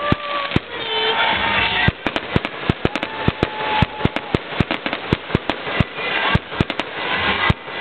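Fireworks display: aerial shells bursting, with a dense run of sharp crackling pops and bangs, several a second, from about two seconds in.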